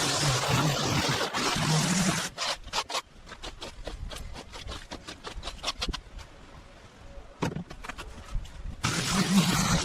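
A power tool runs with a loud hiss over a low hum, then cuts out about two and a half seconds in. Scraping and clicking follow, and the machine starts up again near the end.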